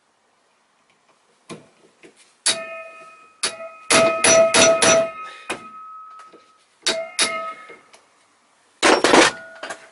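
Hammer blows on a hand-held steel punch set on a seized bolt of an aluminium throttle body held in a vise. About a dozen sharp metallic strikes come in bursts, each leaving a short ring, fastest around the middle and again near the end. The bolt is stuck tight.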